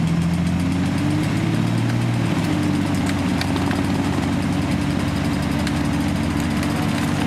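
A 4x4's engine running at raised revs, pitch climbing a little in the first second or two and then holding steady. The vehicle is hung up in deep mud and is being hauled forward on a taut winch cable.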